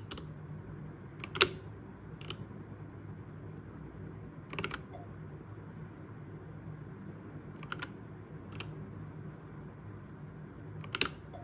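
Single keypresses on a mechanical keyboard with red linear switches: about seven separate clicks, spaced irregularly one to three seconds apart, the loudest about a second in and near the end.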